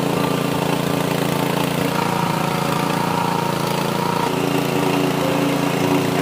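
Motorcycle engine running steadily while driving a small flour mill that grinds roasted split chickpeas into sattu.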